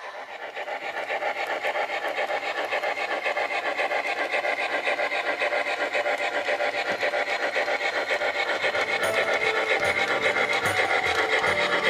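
Bachmann USRA 4-6-2 model steam locomotive running, a fast, even chuffing rhythm. A few short held tones come in about nine seconds in.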